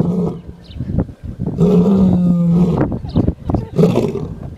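Male lion roaring in its sleep: long, low, steady-pitched calls about a second each, with breathy sounds between them. One call trails off at the start, another runs from about one and a half seconds to nearly three seconds in, and a shorter one comes near the end.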